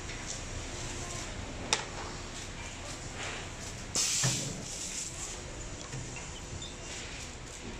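Workshop hum from a heat-transfer press for wooden puzzles, with a sharp click a little under two seconds in and a short hiss with a low thud about four seconds in as the press is worked.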